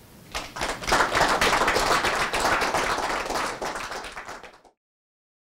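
An audience applauding: many hands clapping, building quickly to its loudest about a second in and slowly thinning, then cut off abruptly near the end.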